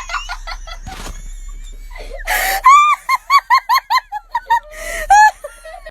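A person laughing hard in a quick string of short, high-pitched, wheezing laughs, about five a second, after a gasping breath.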